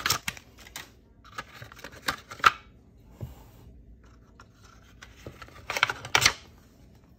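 Scraping and sharp metal clicks as a 4L60E clutch piston is worked down into its steel clutch drum, by fingers and then a small hand tool. The noise comes in short bursts, with a sharp click about two and a half seconds in and another near the end.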